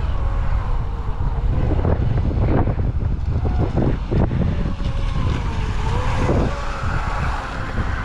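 Wind buffeting the microphone, over the faint whine of an RC speedboat's 1800 kV brushless motor (ProBoat Impulse V3 on 6S) running out on ocean waves, its pitch dipping and rising with the throttle.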